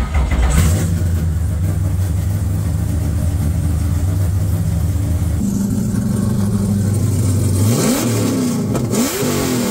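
Straight-piped LS V8 with a 3-inch single exhaust, running loud at a steady idle. The idle note steps down about five seconds in, then two quick throttle blips rise and fall near the end.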